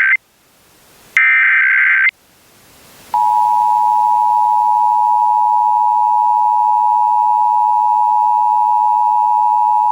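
Emergency Alert System alert. The last SAME header data bursts come first: a shrill digital screech cuts off just after the start, and another lasts about a second. Then, about three seconds in, the steady two-tone EAS attention signal starts and holds, marking the start of a Required Monthly Test.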